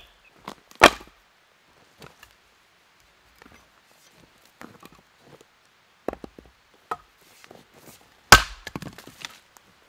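A sharp wooden knock of split firewood set on a stack about a second in, then a few lighter wooden knocks. Near the end comes the loudest sound, a single hard strike of a Rinaldi Calabria 700 g axe splitting a log on a chopping block, followed by a short rattle of wood.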